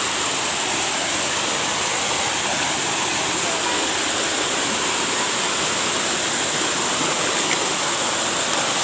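Waterfall running steadily: a constant, even rush of falling water.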